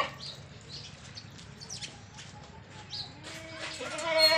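Small birds chirping with short high calls throughout. Near the end a goat gives a loud, wavering bleat, with fainter goat calls behind it.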